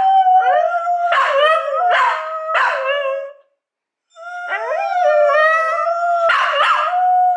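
A Doberman howling: two long drawn-out howls, each about three seconds, with a short break between them, and sharp yips mixed in. It is the dog's mock "crying".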